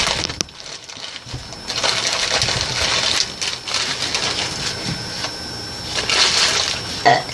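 Plastic candy bag and wrappers crinkling and rustling as they are handled, in two bursts of crackly rustling.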